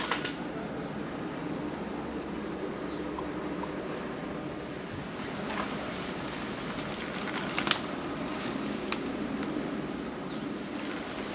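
Outdoor ambience: a steady hiss with faint short chirps, broken by a sharp crack at the very start and another about eight seconds in.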